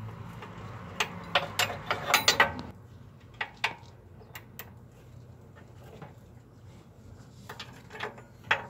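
Ratchet wrench clicking in quick runs and single clicks as it works a lower control-arm pivot bolt loose, with the densest run in the first few seconds and another near the end.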